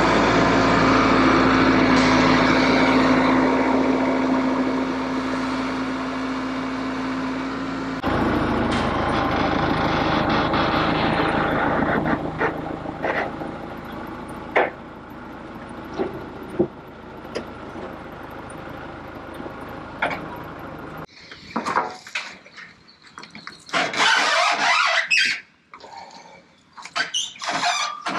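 Wood-Mizer LT15 Wide portable sawmill's engine running steadily, with a few sharp knocks. The sound changes abruptly about eight seconds in and again a little past twenty seconds, after which it comes in uneven loud stretches with short gaps.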